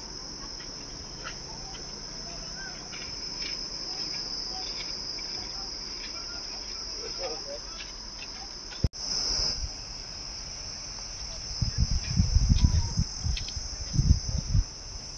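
Insects chirring in a steady high-pitched drone. In the last few seconds, irregular low rumbles on the microphone come and go.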